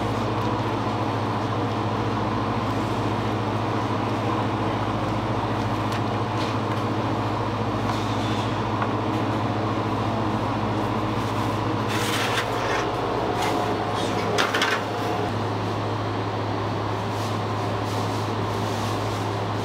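Steady low hum of bakery machinery running, with a few brief light clatters about twelve to fifteen seconds in.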